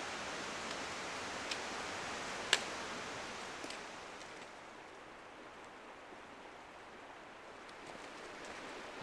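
Steady rushing outdoor noise with two sharp clicks, about a second and a half and two and a half seconds in. About four seconds in, the noise drops to a fainter hiss.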